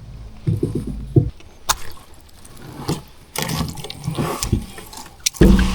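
Scattered clicks and knocks from handling gear and a fish in a small aluminium-style fishing boat, with water splashing and a loud low thump near the end.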